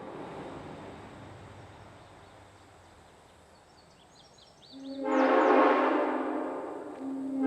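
Locomotive air horn blown on compressed air: the echo of the previous blast dies away, then a long chord blast sounds about five seconds in, breaks briefly, and a second blast starts near the end.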